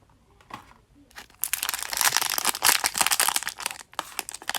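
Small plastic toy blind bags crinkling and tearing as they are opened by hand, starting about a second and a half in after a near-quiet moment.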